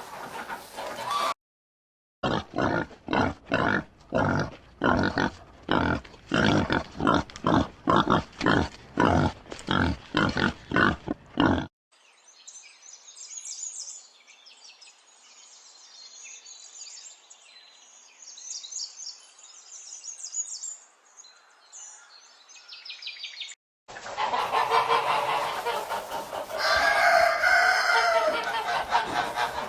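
Domestic fowl calls cut together: first a hen clucking in a rapid, even run of short calls for about nine seconds. Then faint, high, thin chirping for about twelve seconds. Near the end come louder honking calls, typical of geese.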